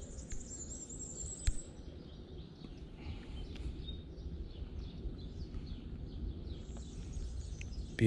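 Small songbirds chirping and calling in the background, with a high thin trill near the start, over a low steady rumble. One sharp click about a second and a half in.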